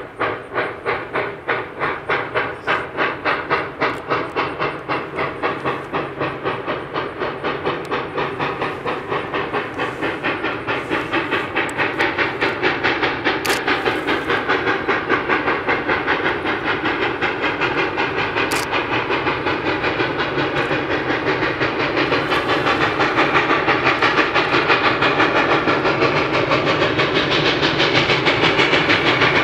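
Steam locomotive working hard as it pulls a train, its exhaust chuffing in a steady, rapid beat that grows louder as it approaches.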